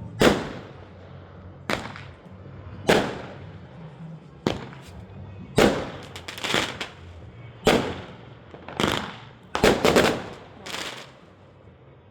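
Fireworks going off: about eleven loud bangs at roughly one-second intervals, each with a short echoing tail, quieter in the last second.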